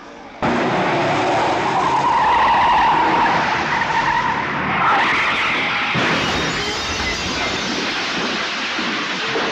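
Car tyres screeching in a long skid under hard braking, starting suddenly about half a second in.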